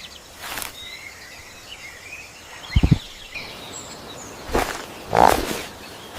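Bird-chirp ambience with short sound effects laid over it: a brief whoosh about half a second in, a low double thud near three seconds, and two louder knocks between four and a half and five and a half seconds.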